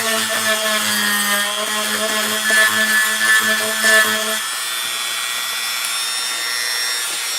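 Small handheld power drill running steadily while drilling a hole in a craft piece. Its motor tone is loud for the first four and a half seconds, then eases off and carries on more faintly.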